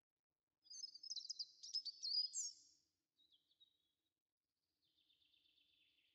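Bird song: a quick warbling phrase of high chirps about a second in, a short call after it, then a fainter buzzy trill near the end.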